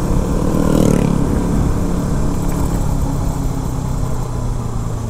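KTM RC 200's single-cylinder engine running while riding, busier in the first second and a half, then settling into a steady hum.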